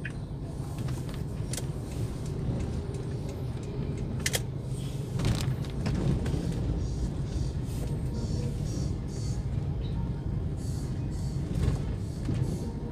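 Steady low engine and road rumble inside a moving Toyota Avanza's cabin, with a few short clicks.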